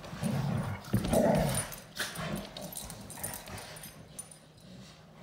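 Goldendoodle mother and puppy growling in play, two loud growly bursts in the first second and a half, then quieter grumbling with a few knocks.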